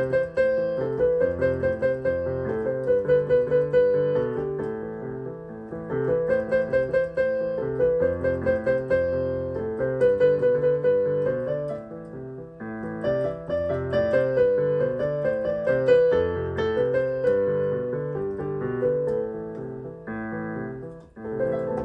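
Yamaha portable keyboard played with both hands: a melody over a repeating lower accompaniment, in phrases with short breaks about twelve seconds in and near the end.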